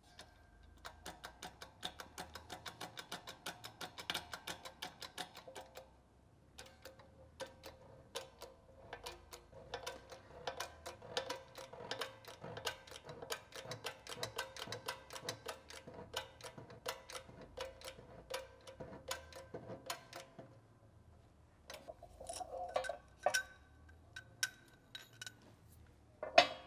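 Hydraulic shop press being worked to push a bearing down onto a Porsche 915 transmission's pinion shaft by its inner race: a rapid, even clicking at about five a second, in two runs with a short break between. A sharp metal clank sounds near the end as the parts are handled.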